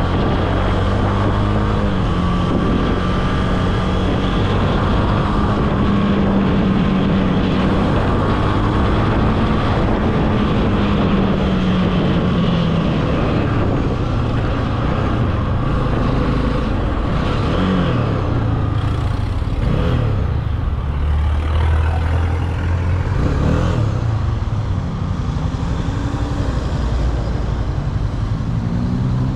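Honda CB300F's single-cylinder engine running. It holds a steady note for about twelve seconds, then its pitch falls and rises a few times, and it climbs again near the end.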